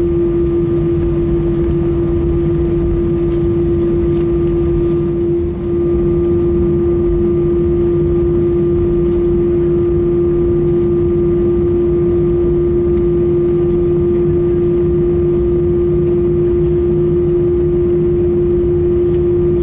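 Airbus A320 jet engines at taxi power heard inside the cabin: a steady drone with one strong constant tone over a low rumble. The level dips briefly about five and a half seconds in.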